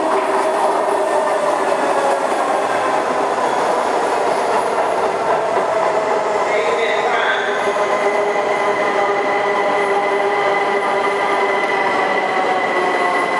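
Washington Metro train pulling in alongside the platform and slowing: a steady rumble with several motor whines that slowly fall in pitch. A high steady tone joins about halfway through.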